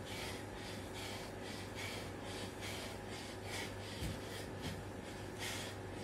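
A man breathing hard and fast during burpee push-ups, about two sharp breaths a second. A soft thud about four seconds in, as his bare feet land on the tiled floor when he jumps them in.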